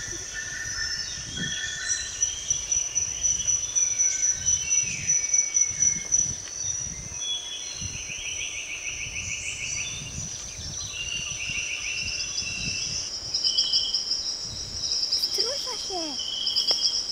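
Summer meadow insects stridulating: a steady high buzz with repeated pulsed chirping trills, over low, irregular thumps and rumble on the microphone.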